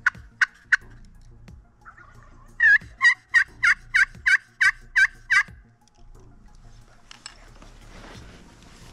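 Turkey yelping. A few single sharp notes, then after a short pause a steady run of about nine yelps at roughly three a second.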